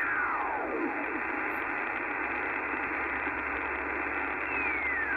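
Icom IC-R70 shortwave receiver playing steady band hiss through its speaker while being tuned across an empty 20 m band. A whistle glides down in pitch during the first second, and another does so near the end, as the tuning sweeps past signals.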